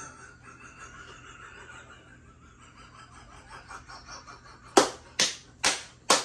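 Four loud, sharp smacks about half a second apart near the end, each dying away quickly, after several seconds of faint low voices.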